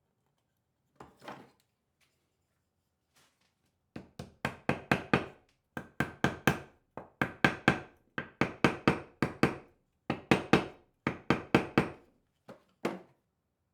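Light hammer taps on wood in quick runs of four to six strokes, about four a second, with short pauses between runs.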